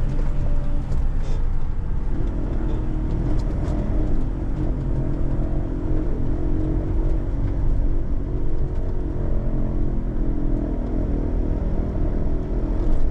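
Engine and road noise of a Citroën Jumper camper van driving slowly, heard from inside the cab: a steady low rumble, with an engine drone coming in about two seconds in.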